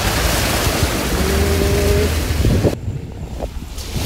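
Muddy water splashing up from the front tyre of a 4x4 driving through a flooded stretch of dirt track, over the low steady drone of its engine. The splashing stops abruptly about two and a half seconds in, leaving the engine drone.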